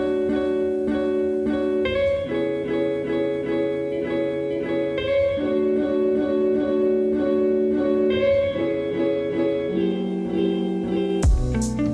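Background music: plucked guitar chords in a steady repeating pattern, changing every couple of seconds. Heavy bass and sharp drum hits come in just before the end.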